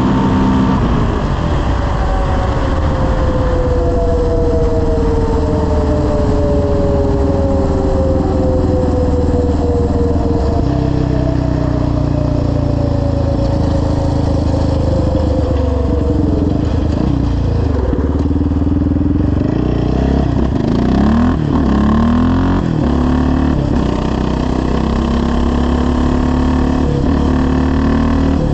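Yamaha Raptor 700R's single-cylinder four-stroke engine, fitted with a full aftermarket exhaust, running at speed down the road. The revs slide slowly down during the first third, then rise and drop quickly several times about two-thirds of the way in.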